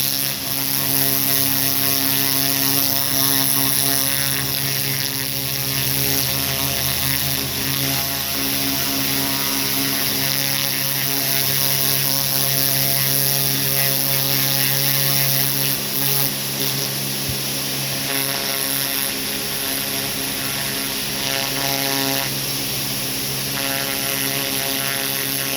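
Pressure washer running steadily, its motor drone under the hiss of water from a turbo nozzle spraying a turkey skin.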